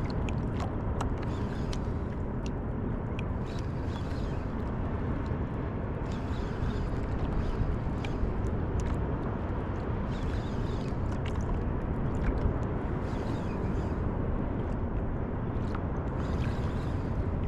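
Ocean water washing and lapping around a surfboard, with a low, steady rumble of wind on the microphone. A hissing wash of water comes every few seconds, with a few light clicks.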